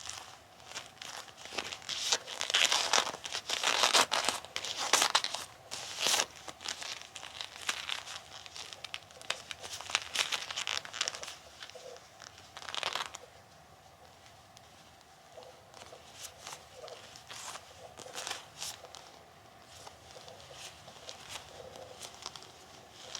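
Bilpearl rubber gloves being rubbed and pressed together, crinkling and rustling with sticky peeling clicks as the surfaces grip and pull apart. Dense and loud for the first half or so, then sparser, softer clicks and brief squeaks.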